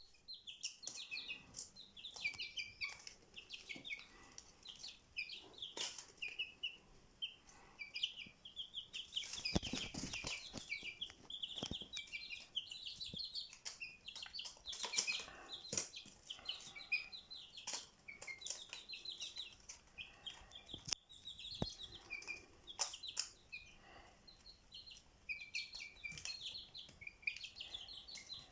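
Many small birds chirping in a dense, unbroken chatter of short high notes, with scattered sharp clicks throughout.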